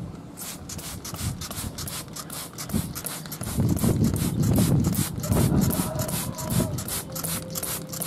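Plastic trigger spray bottle being pumped fast, about four quick hissing squirts of mist a second, spraying liquid plant treatment onto chili plants. A low rumble runs under the squirts through the middle.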